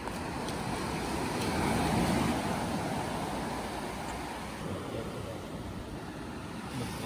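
Surf breaking on a pebble beach: a wave surges in, swelling to its loudest about two seconds in, then washes back more quietly.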